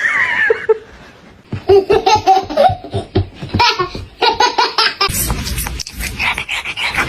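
A person laughing hard in quick repeated bursts, with a short high squeal just before it; about five seconds in, the sound changes abruptly to a denser, noisier one.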